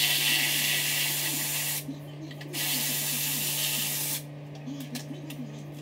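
Two hissing sprays, each about two seconds long, with a pause of under a second between them.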